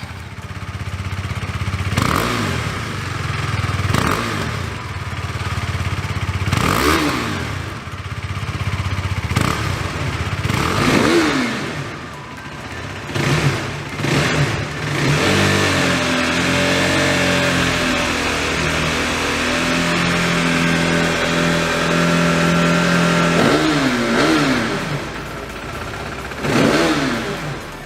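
KTM RC 390's single-cylinder engine through its stock factory exhaust, revved up and down in a series of quick blips. In the middle stretch it holds a steady, higher engine speed for several seconds before revving again.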